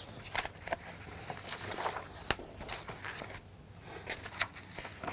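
Papers being handled and shuffled on a desk: light rustling with scattered small clicks and taps.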